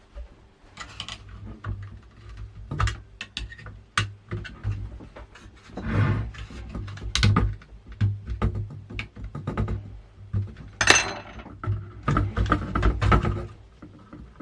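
Irregular clicks, knocks and scrapes of a large CPU heatsink and fan being worked loose and lifted off a motherboard, with a louder scrape about eleven seconds in.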